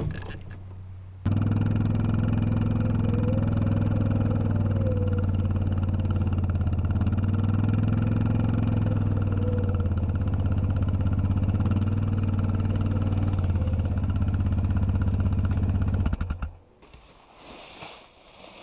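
A motor vehicle engine running steadily with a deep hum, its pitch shifting slightly now and then. It starts abruptly about a second in and cuts off shortly before the end.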